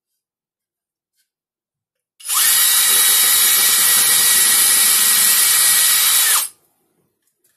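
Cordless drill spinning up and running at a steady speed for about four seconds as it bores into a plywood baseboard support, then winding down. The motor's whine rises as it starts and falls as it stops.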